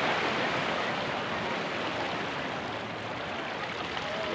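Sea surf washing onto a rocky shore: a steady rushing noise that cuts off abruptly near the end.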